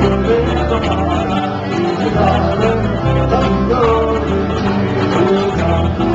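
Live acoustic band: strummed guitars and other plucked string instruments playing a folk song, with men singing the melody.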